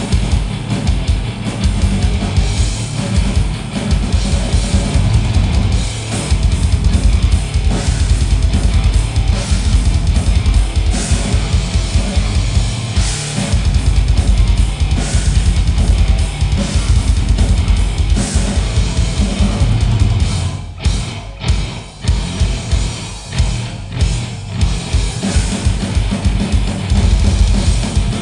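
Grindcore band playing live and loud: very fast bass drum strokes under distorted guitar and bass. A few short stops come about two-thirds of the way through before the whole band crashes back in.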